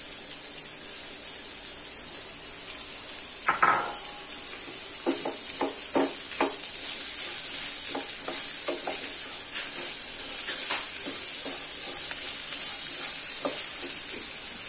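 Chopped okra sizzling steadily in hot oil in a frying pan, with a spatula knocking and scraping against the pan as the okra is stirred, the knocks coming several times between about three and eleven seconds in.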